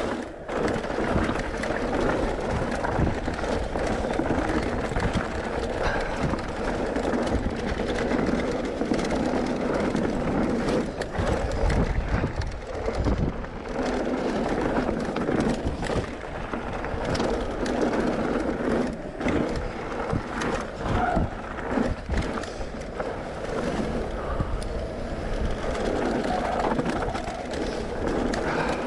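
Mountain bike rolling downhill over a loose, rocky track: steady tyre noise on gravel and stones, with constant clatter and rattle as the bike runs over bumps.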